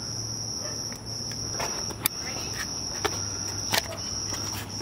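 Crickets chirping in a steady, high trill, over a low hum, with a few sharp clicks.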